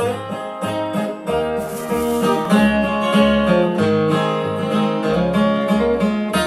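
Acoustic guitar playing the instrumental opening of a country song, picked and strummed at an even beat over a moving bass line.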